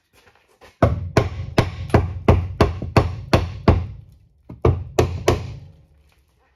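Hammer blows against the underside of a car to persuade a stuck part loose. There are about a dozen quick strikes, each with a short ring: a run of nine, a brief pause, then three more.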